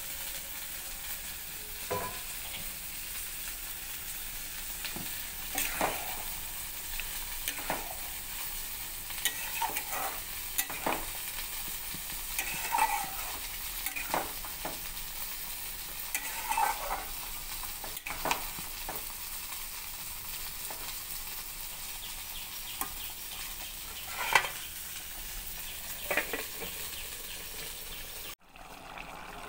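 Chicken curry sizzling steadily in a steel pot. A spoon scrapes and clacks against the pot at irregular moments as the dish is stirred.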